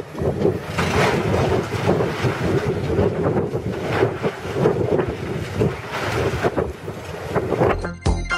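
Hydraulic demolition excavator tearing into a concrete building's rubble, with irregular crunches and crashes of falling debris under heavy wind buffeting on the microphone. Music starts near the end.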